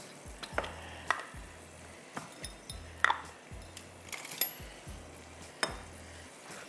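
Cooking utensils clinking and tapping against spice bowls and a wok as spices go in, a scattering of sharp clinks about a second apart.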